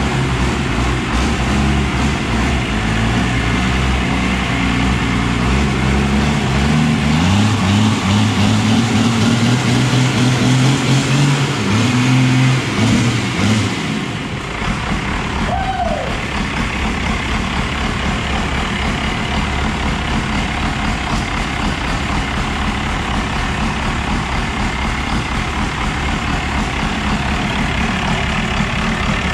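Freshly rebuilt 12-valve Cummins inline-six diesel running steadily at idle. Background music plays over it for about the first half.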